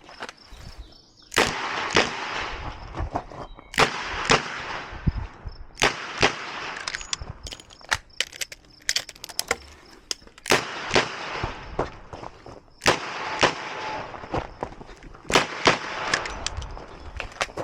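Ruger GP100 Match Champion revolver firing .38 Special rounds, mostly in pairs about half a second apart, each shot ringing out briefly, with a longer pause about midway.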